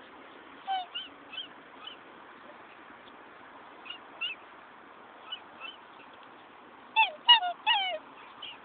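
Black swans calling: short, pitched calls scattered through, then three loud calls close together near the end, each falling in pitch.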